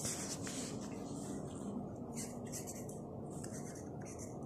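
Pencil lead scratching on lined paper while writing in cursive, a run of short strokes with brief pauses.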